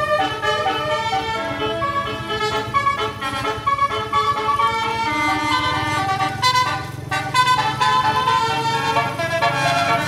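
A bus's multi-tone telolet horn playing a tune, several notes sounding at once and stepping from one chord to the next. Beneath it the bus engine is running, a low rumble that grows stronger about halfway through.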